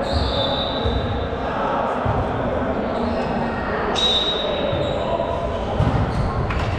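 Echoing sports-hall noise with balls bouncing on the wooden floor and voices in the background, and a thin high steady tone that starts sharply at the beginning and again about four seconds in.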